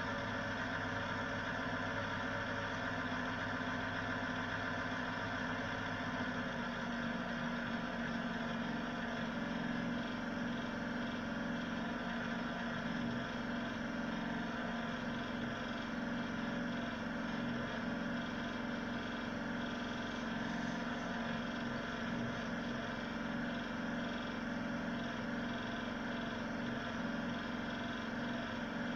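Ig-Max 1607 500W PC power supply running: a steady mechanical hum with several steady tones over it. About six seconds in, the low hum drops away and a somewhat higher-pitched hum takes its place.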